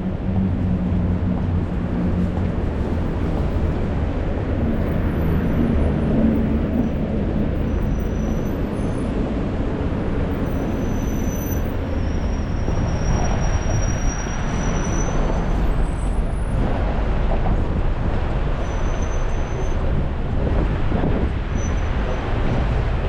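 Busy city road traffic on wet pavement: a steady mass of engines and tyre hiss. A large vehicle's engine hums low through the first few seconds, and a passing vehicle swells the hiss about halfway through.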